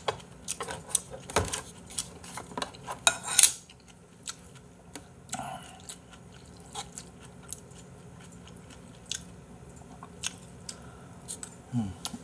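Metal spoon clinking and scraping in a bowl of beef-intestine hot pot, with some chewing. The taps come thick and fast for the first few seconds, with a longer scrape near the third second, then turn sparse.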